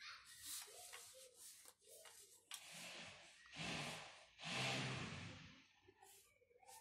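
Quiet scratching of a graphite pencil drawn in several strokes along a rolling ruler as the lines of a drawing are darkened, with a few light clicks as the ruler is handled.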